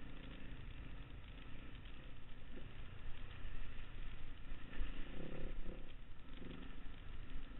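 Trail motorcycle running along a gravel track, heard from a camera mounted on the bike: engine note under heavy wind rumble on the microphone, getting louder for a moment about five seconds in.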